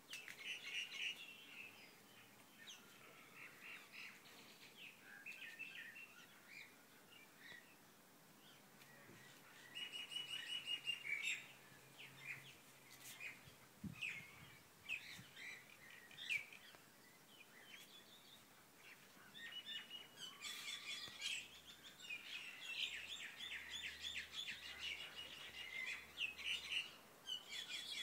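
Small birds chirping and calling, with quick runs of trilled notes about ten seconds in and again through the last third.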